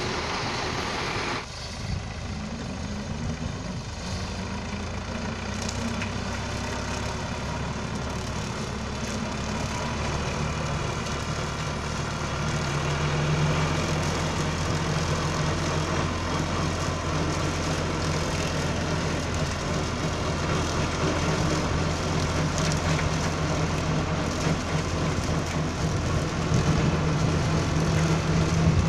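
John Deere tractor's diesel engine running steadily under load as it pulls a seed drill, with a low hum that grows somewhat stronger about halfway through. In the first second and a half, before an abrupt change, a different tractor engine is heard: a Belarus 510 hauling a sugarcane trolley.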